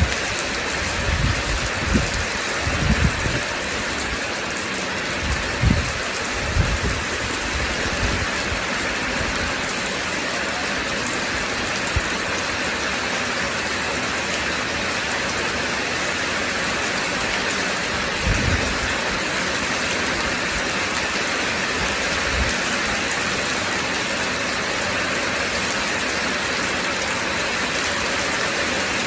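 Steady rain falling hard, a continuous even hiss, with a few short low rumbles of thunder in the first several seconds and once more a little past halfway.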